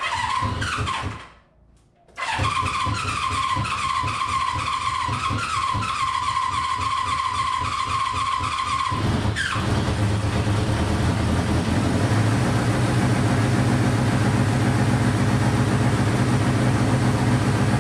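Honda CB500 inline-four being started on its electric starter, on its first start after a carburetor cleaning and float-height reset. The starter whines and chugs in a short burst, stops, then cranks again for about seven seconds before the engine catches about nine seconds in and keeps running steadily.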